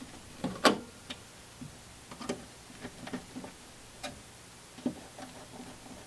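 Irregular metal clicks and taps from a tool tightening the set screws on zinc die-cast EMT slip connectors, about a dozen in all, the loudest about a second in.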